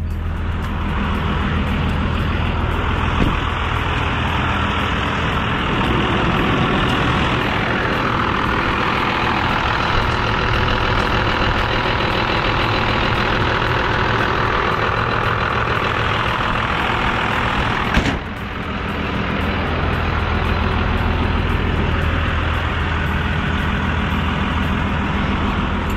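A 12-valve 5.9 Cummins turbo diesel running steadily at high idle, held up by a throttle cable pulled from a switch in the cab. A single sharp knock about eighteen seconds in.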